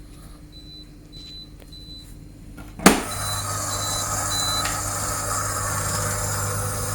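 Electrolux dishwasher in overflow error: its drain pump hums steadily while the alarm gives short, high beeps over and over, the sign that the anti-flood device has been tripped by water in the base tray. A sharp click comes just before three seconds in, after which the hum and a rushing noise are louder.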